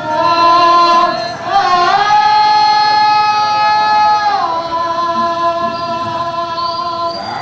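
Javanese female singer (pesindhen) singing long held notes, gliding up to a higher held note about two seconds in and sliding back down after about four seconds.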